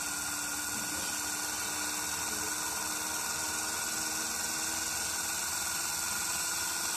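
Small DC shunt-wound motor spinning a disc: a steady electric hum and whine with a faint tone that creeps upward as the closed-loop controller speeds the motor up toward its set point.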